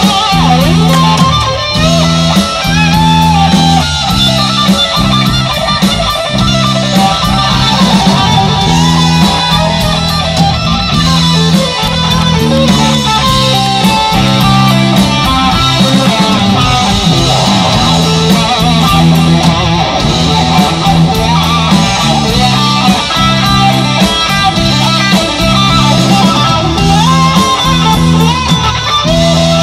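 Heavy rock band playing, led by electric guitar: bending lead notes over a steady, pulsing rhythm of bass and guitar.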